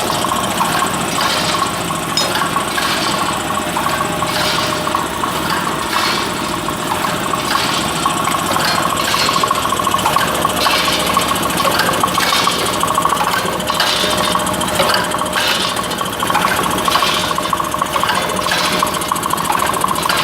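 Automatic packing machine running: a steady mechanical hum with a held whine, and repeated clattering from its moving parts.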